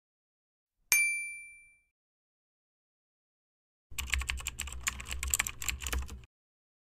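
A single bright ding that rings out and fades, then about two and a half seconds of rapid key-clicking from a typing sound effect, over a low hum.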